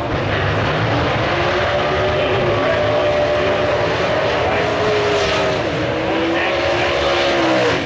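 Drag racing car's V8 engine held at high revs through a burnout, the rear tyres spinning. The pitch holds steady with a slight waver, dips briefly past the middle, and the engine is shut off abruptly near the end.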